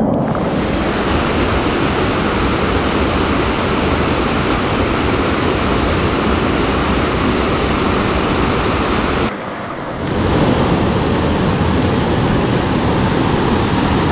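Rushing water of a mountain stream close by, a loud steady rush; it drops off briefly a little after nine seconds and then comes back.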